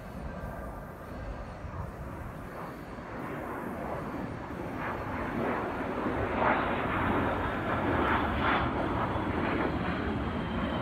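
A-10 Warthog jet passing overhead, the rush of its twin TF34 turbofan engines growing louder about halfway through and staying strongest near the end.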